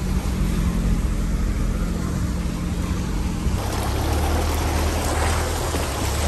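1994 Toyota Land Cruiser Prado's diesel engine running steadily as it rolls into a muddy puddle. About three and a half seconds in, the tyres start churning and splashing through the muddy water, over a low engine drone.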